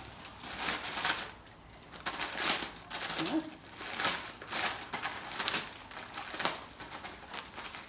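Wrapping paper crinkling and tearing as a dog rips open a wrapped present with its mouth and paws, in short irregular crackly rips one after another.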